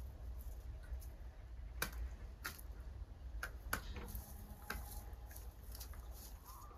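Hens pecking at the ground: irregular, sharp taps of beaks on a concrete and straw floor, a few louder than the rest.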